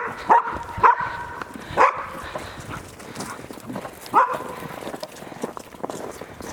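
Animal cries: five short, loud calls, four in quick succession and one more about four seconds in, some ending in a brief held tone.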